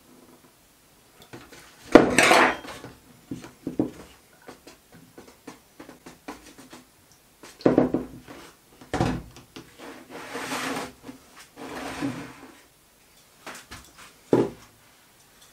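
Knocks and clatters of a small metal part and plastic tubs being handled on a workbench, the loudest about two seconds in, then water swishing as the part is rinsed in a tub, and a sharp knock near the end.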